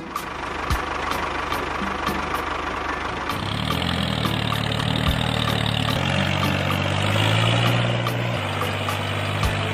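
Tractor engine running steadily with a low chug and faint regular ticks, its note shifting a few times.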